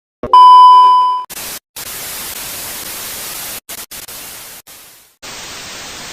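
A loud steady electronic beep lasting about a second, followed by a hiss of static that cuts out and back in abruptly several times.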